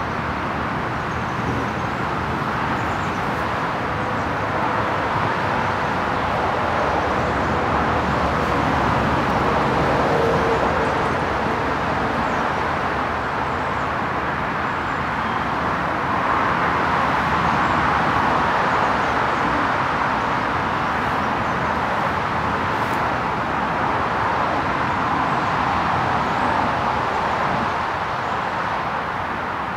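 Steady hum of road traffic, swelling and easing slowly as vehicles pass.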